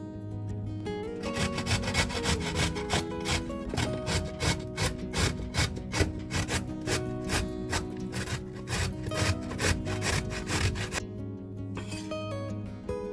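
Quick, even scraping strokes from kitchen food preparation, about three a second, lasting about ten seconds and then stopping, over soft acoustic guitar music.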